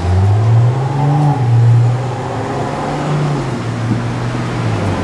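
Low men's voices chanting a slow hymn together, with long held notes that step up and down in pitch.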